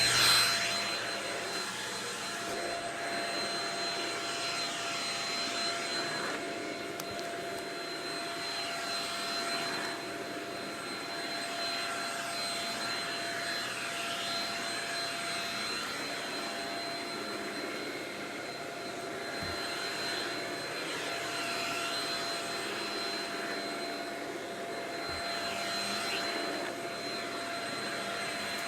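Shark Rocket stick vacuum running, its motor giving a steady high whine over a rushing hiss that swells and eases every few seconds.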